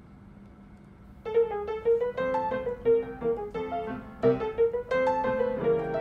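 Background music: after a quiet first second, a light keyboard melody of separate struck notes, piano-like, begins and plays on.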